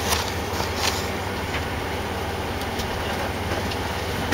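Steady drone of a Boeing 747's cabin ventilation and engine noise, heard from inside the cabin. A few light paper rustles come from the menu being handled.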